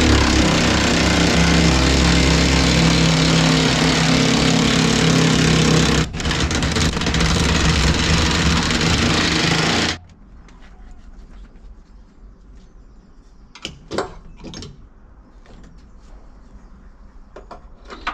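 A forklift's diesel engine being started: a loud, steady engine sound for about ten seconds, with a brief dip about six seconds in, then cutting off suddenly, followed by a few light knocks. The owner takes the trouble for fuel starvation, the engine not getting enough diesel.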